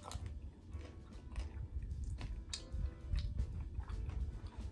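A person chewing a mouthful of nacho tortilla chips close to the microphone, with irregular soft crunches and wet mouth sounds. The chips are less crispy than she would like.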